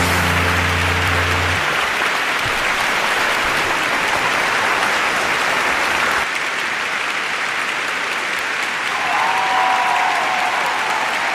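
A large theatre audience applauding, an even wash of clapping. The song's final held low note stops about one and a half seconds in.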